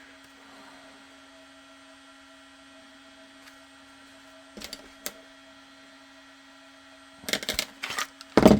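Steady low hum with a couple of light knocks about halfway through, then a cluster of louder knocks and clacks near the end: tools and holster parts being handled on a workbench.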